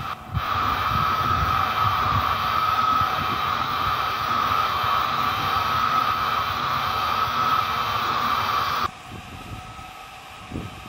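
Algolaser DIY kit 5 W diode laser engraver running a raster engraving: the laser module's cooling fan and the stepper motors driving the head back and forth make a steady whirring with a constant high tone. It cuts off abruptly about nine seconds in.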